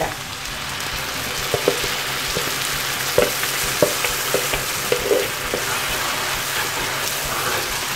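Butter and ginger-garlic paste sizzling steadily in a nonstick frying pan as blended tomato-onion purée is poured in and then stirred with a wooden spatula. A few short clicks and pops sound through the sizzle.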